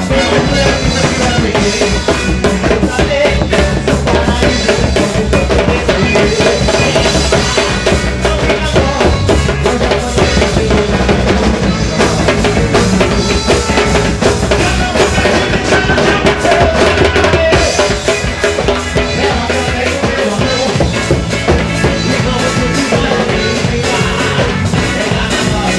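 Loud carnival music led by drums and percussion, with a steady, driving beat.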